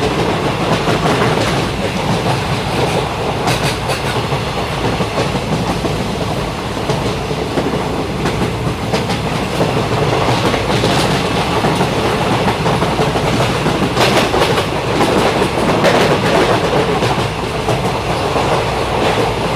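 Train running at high speed: a steady loud rumble and rattle of the wheels on the track, with a few sharper clacks over rail joints.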